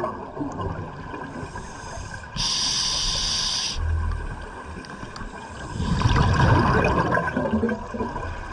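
Open-circuit scuba regulator breathing heard underwater. About two and a half seconds in there is a steady hiss lasting over a second as the demand valve delivers an inhalation. About six seconds in comes the bubbling of an exhalation, which fades before the end.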